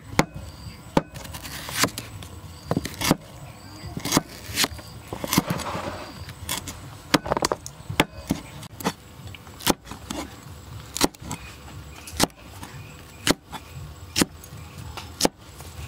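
Cleaver slicing through a banana flower and striking a wooden chopping board: sharp knocks that come unevenly, about once or twice a second.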